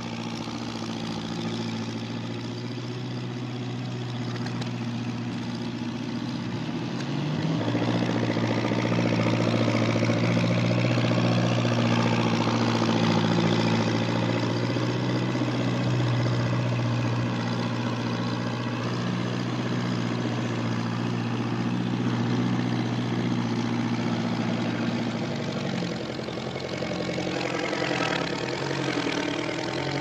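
A vehicle engine running steadily with a low hum, louder from about seven seconds in and changing in tone near the end; the soundtrack is played backwards.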